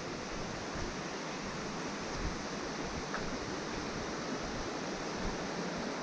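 Steady, even rushing of a waterfall, with a couple of faint ticks.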